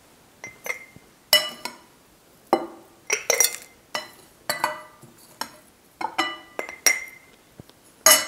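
A metal spoon clinking against a glass jar and a glass bowl as a dry oat-flake and seed mix is spooned from the bowl into the jar: a string of short ringing clinks at an irregular pace, the loudest near the end.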